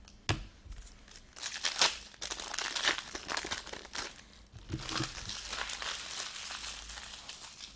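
Plastic wrapping crinkling and tearing as a sealed box of hockey trading cards is opened, with a sharp click early on and uneven bouts of crackling.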